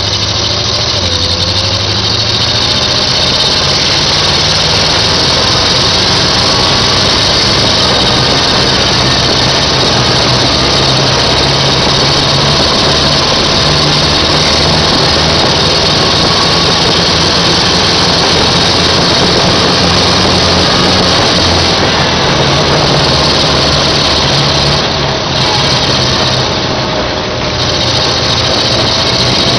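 Tank engine running loud and steady while the tank drives, its pitch shifting a little as it goes, with a constant hiss over it.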